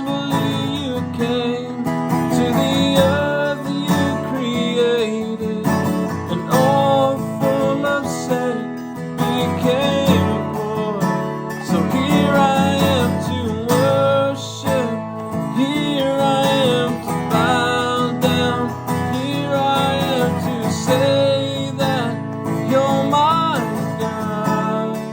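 A worship song played on strummed acoustic guitar with a man singing the melody.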